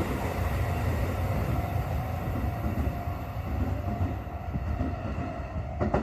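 Shin-Keisei Line electric commuter train pulling away from the station platform, its low rumble slowly fading as it recedes, with a thin steady whine above it. There is a single sharp click near the end.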